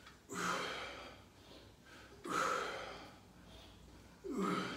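A man breathing out hard three times, about two seconds apart, with each rep of an explosive barbell shoulder press.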